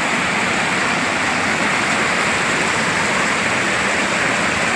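Steady rush of flowing river water, an even hiss with no change in level.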